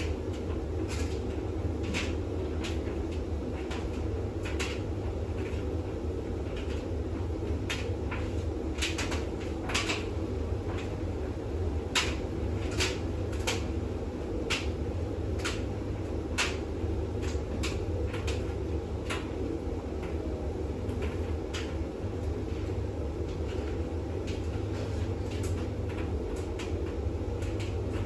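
Bosch WAX32GH1 front-loading washing machine in its intermediate spin: a steady drum and motor hum, with irregular sharp clicks and knocks from the load in the drum, about one or two a second.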